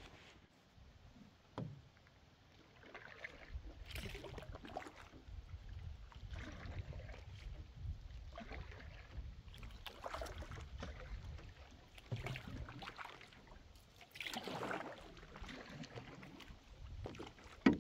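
Paddle strokes in calm water, starting a few seconds in and coming every second or two, each a soft splash and trickle as the blade dips and pulls.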